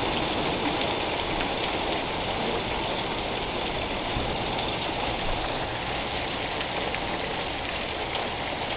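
Heavy rain falling steadily in a thunderstorm downpour.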